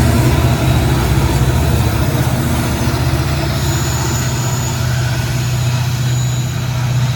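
Diesel freight locomotives working hard under heavy load, a steady, loud low engine drone as they haul a loaded grain train.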